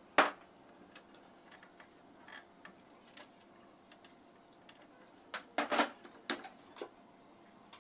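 Clicks and knocks of tools and parts being handled on a metal table: a sharp knock about a quarter second in, scattered light ticks, then a cluster of louder knocks and clicks around six seconds in.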